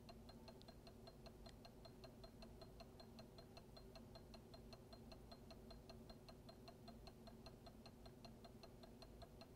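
Faint, even ticking about six times a second over a low steady hum, from a magnetic stirrer spinning its stir bar in a glass Erlenmeyer flask.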